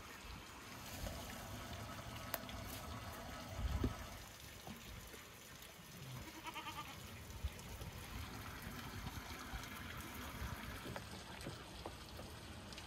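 Steady trickle of running water throughout. A goat bleats briefly about six and a half seconds in, and there is a dull thump a little before four seconds in.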